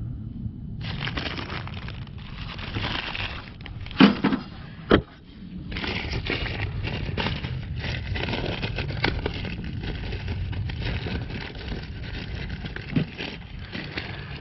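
Plastic parts bag crinkling and rustling as it is handled and opened to take out a new purge solenoid, with two sharp snaps about four and five seconds in.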